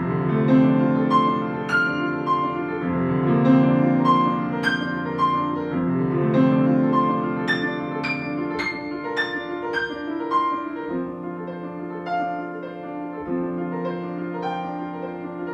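Steinway & Sons grand piano played solo: a stream of quick struck notes in the upper range over held low notes.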